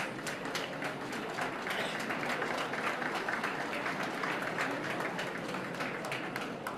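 Large audience applauding: a dense, steady patter of many hands clapping, easing slightly near the end.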